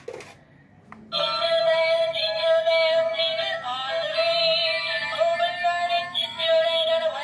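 A baby walker's electronic music unit playing a tinny synthesized tune through its small speaker, starting about a second in after a click from a button press; the repaired music kit is working.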